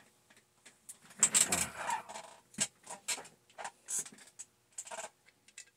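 Small metal parts being handled and set down on a workbench: a short clatter about a second in, then a string of separate clicks and clinks.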